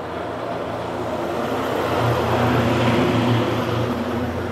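A motor vehicle engine running with a steady low hum, growing louder about two seconds in and easing off near the end.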